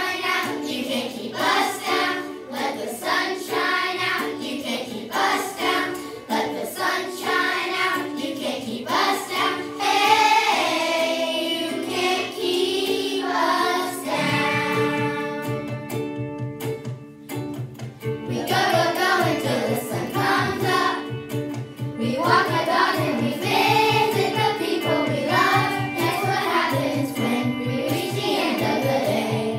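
Children's choir singing in unison over an instrumental accompaniment. About halfway through, a steady low rhythmic bass pulse joins in.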